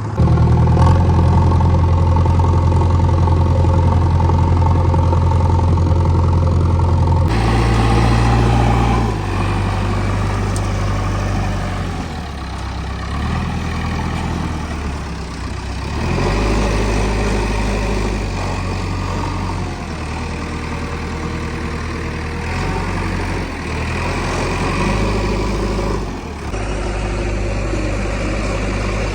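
JCB 3DX backhoe loader's diesel engine running loud and working under load while digging and loading sand, its engine speed stepping up and down several times.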